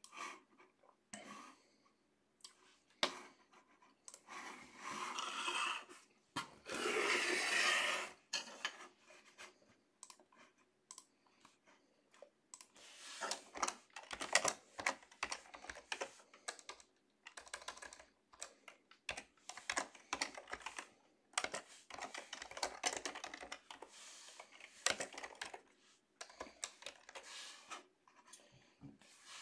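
Typing on a split ergonomic computer keyboard: scattered keystrokes at first, then quick runs of key clicks through the second half. A few seconds in there is a longer rustling, scraping noise.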